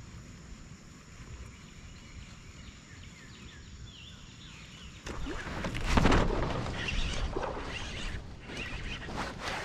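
Quiet open air with a few faint bird chirps. About halfway through, a sudden loud burst of splashing, then continued splashing and thrashing at the surface from a hooked pickerel as it is fought and reeled in.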